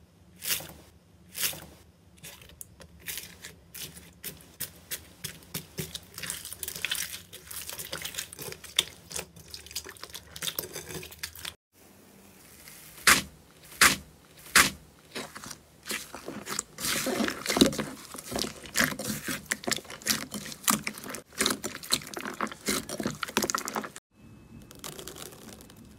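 Slime being pressed and squeezed by hand in a glass bowl, making rapid sticky clicks and pops. First a clear slime mixed with foam beads is pushed under a finger, then, after a short break, a pink slime is pressed flat under the palm, with denser popping in its second half. Near the end a metal grid presser pushes into a foil-covered slime, more quietly.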